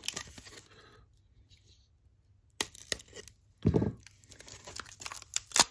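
Clear packing tape being pulled and torn off a cardboard sleeve wrapped around a stack of plastic trading-card holders: a few short, sharp tearing and crinkling sounds after a quiet second or so, ending with a sharp click.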